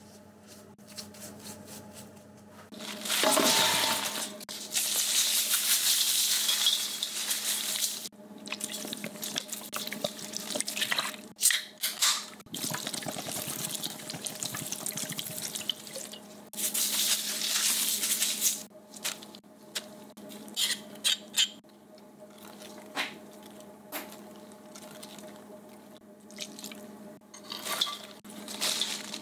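Kitchen tap running in several stretches of a few seconds each, water splashing, with a few short clicks and knocks between them and a steady low hum underneath.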